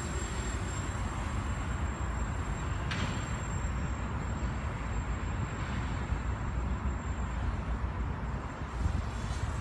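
Wind rumbling on the microphone over the faint buzz of a small FPV racing quadcopter flying at a distance.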